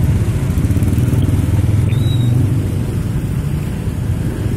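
Engines of buses and other road traffic running close by: a steady, loud low rumble.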